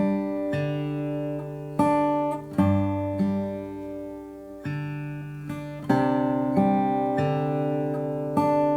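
Acoustic guitar intro of a love song: chords picked and strummed, each ringing out and fading before the next. It is heard as played back through a powered bookshelf speaker for a sound test.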